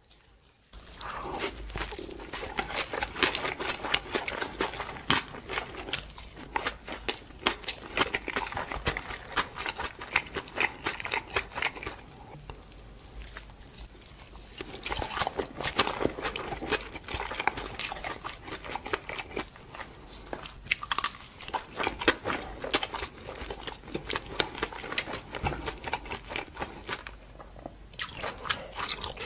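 A person biting into and chewing dumplings: a dense run of sharp clicks and smacks from the mouth, with short lulls about twelve seconds in and near the end.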